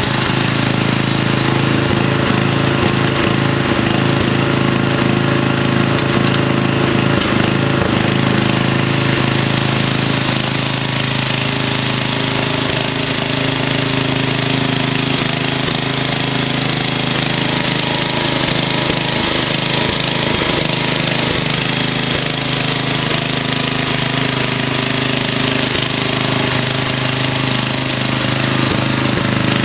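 JCPenney garden tractor's engine running steadily at an even pitch and level.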